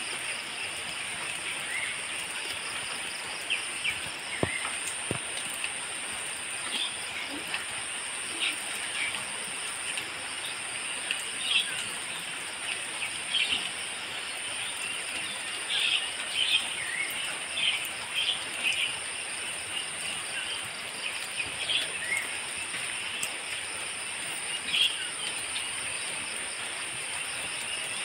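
Outdoor ambience of insects and birds: a steady high-pitched insect buzz with many short bird chirps scattered through it.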